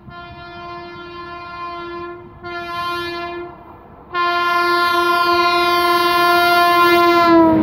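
Indian Railways electric locomotive's horn sounding as it approaches at speed: one note held for the first two seconds, a short note, then a long loud blast from about four seconds in, its pitch dropping slightly at the very end as the locomotive passes.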